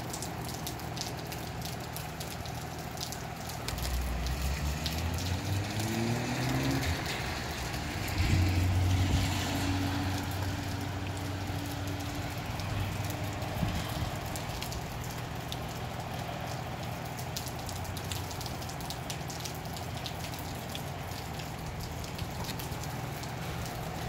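Steady rain falling, with many small drips ticking close by. From about four seconds in, a vehicle engine joins it, rising in pitch and then holding steady before fading after about thirteen seconds.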